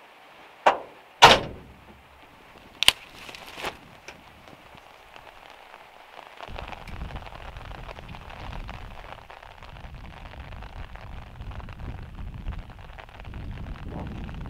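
Van door clicking and knocking as it is opened and shut: four sharp knocks in the first four seconds, the loudest about a second in. Then steady rain hiss, with wind rumbling on the microphone from about halfway.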